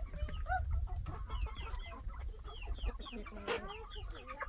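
A flock of backyard chickens clucking and calling, many short calls overlapping, with one louder call about three and a half seconds in, over a low rumble.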